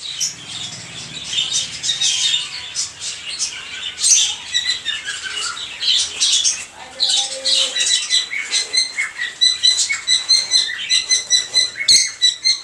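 Many caged pet birds, a mix of cockatiels, lovebirds and budgerigars, chirping and squawking together in a small room, with quick repeated chirping in the second half.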